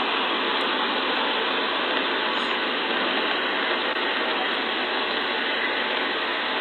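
Steady, even hiss through a Ring video doorbell's narrow-band microphone, with no voices.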